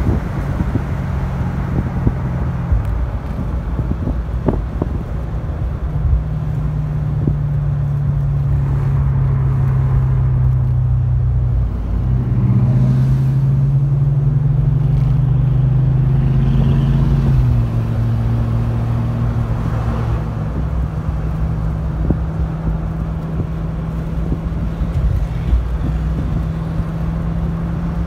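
Maserati GranSport Spyder's 4.2-litre V8 running under way, heard from inside the cabin with road rumble beneath it. The steady low drone steps to a new pitch a few times, about 6, 12 and 17 seconds in.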